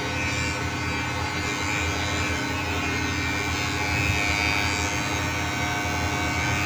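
Electric hair clipper running with a steady hum.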